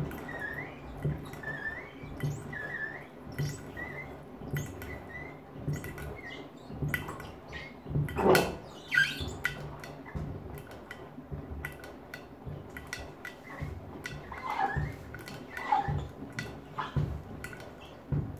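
Front-loading washing machine tumbling a load of children's sandals in water. The sandals thump and knock against the drum in a regular rhythm, with short squeaks in the first few seconds and one louder knock about eight seconds in.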